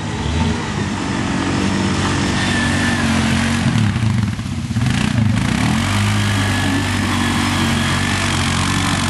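Big truck engine revving hard; about midway the revs dip and climb back twice, then hold high and steady.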